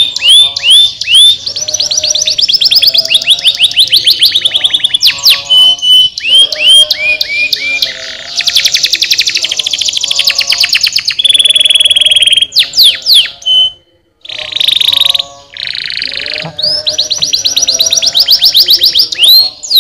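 Domestic canary singing a long, loud song of rapid trills, rolls and clear whistled notes. There is a short break about fourteen seconds in.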